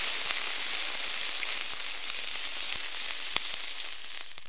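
Food frying on a hot pan: a steady sizzle with scattered crackling pops that fades out near the end.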